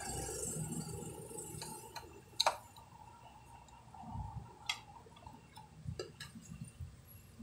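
Desoldering an electrolytic filter capacitor from a CRT TV circuit board with a soldering iron: a soft hiss at first, then a handful of sharp clicks and light knocks, the loudest about two and a half seconds in.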